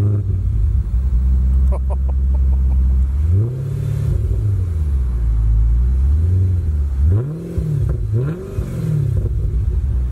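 B7 Audi RS4's high-revving V8 idling evenly for about three seconds, then revved in a series of throttle blips, the last three quick in succession.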